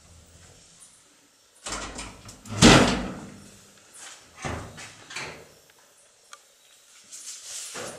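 A metal door being moved as people pass through it, loudest in one swell about three seconds in, followed by a few softer knocks.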